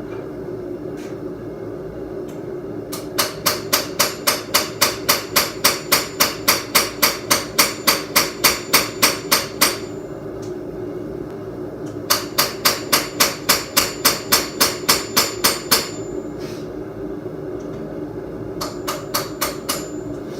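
Hand hammer striking steel on an anvil in rapid runs of about four blows a second: a long run, a pause, a second run, then a few final blows near the end. This is the forging of a blade, likely the file-steel seax. A steady drone runs underneath.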